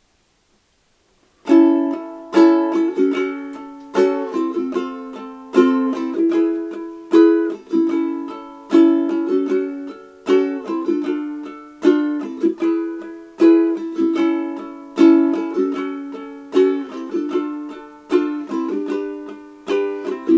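Ukulele strumming chords in a steady, rhythmic pattern, with an accented strum about every second and a half and lighter strums between. It starts about a second and a half in after a brief silence. It is the song's intro progression, A, F#m, F, E.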